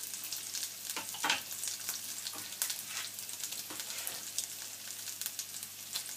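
Diced bacon and a halved garlic clove sizzling in olive oil in a frying pan, a steady hiss full of small crackles and pops. A few sharper clicks stand out about a second in.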